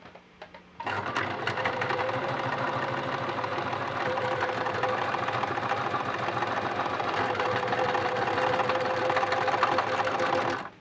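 Brother LS-2125 electric sewing machine running steadily at speed: a fast rattle of the needle mechanism over a steady hum. It starts about a second in and stops abruptly near the end. It runs without forming stitches, a fault the owner puts down to a wrongly installed needle.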